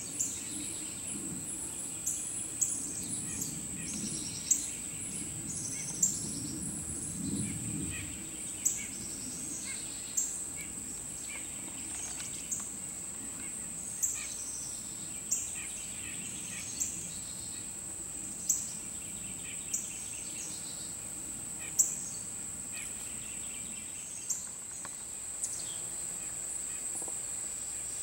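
Outdoor summer insect chorus: a steady high-pitched drone, with short sharp chirps repeating every second or two over it and a low rumble in the first third.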